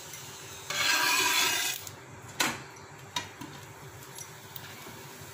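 A steel spoon rubbing oil over a parotta on a hot nonstick tawa for about a second, then two light clicks of the spoon on the pan.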